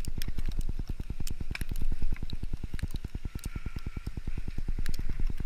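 Skis gliding over snow, heard as a rapid, even low fluttering of about ten beats a second with scattered faint clicks and scrapes.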